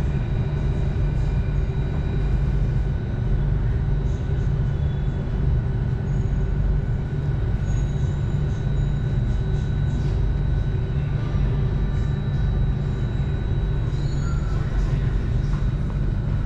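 Singapore MRT Circle Line train running through a tunnel, heard inside the car: a steady low rumble with faint, steady whining tones above it.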